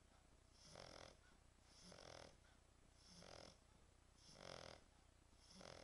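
French Bulldog snoring quietly and rhythmically, five rattling snores about a second and a quarter apart.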